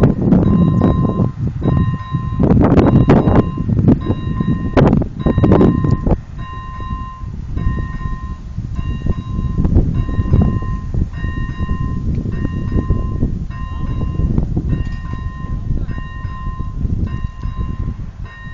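Level crossing warning bell dinging at an even pace, about once a second, stopping just before the end. Under it runs a loud low rumbling with knocks, heaviest in the first six seconds.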